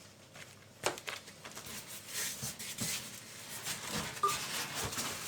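Rustling and scattered light clicks and knocks of a PC case's packaging and accessories being handled, with one sharp click about a second in.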